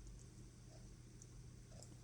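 Near silence: room tone with a faint steady low hum and a few faint light ticks.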